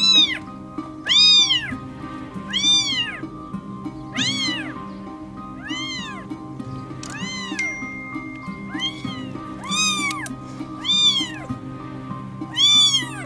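A kitten meowing again and again, about ten high-pitched cries that each rise and fall in pitch, spaced a second or so apart. Soft background music with held notes plays underneath.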